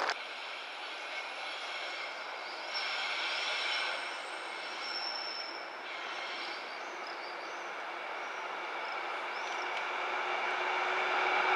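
Steady city street noise of passing traffic, with a faint high squeal about five seconds in, getting louder toward the end.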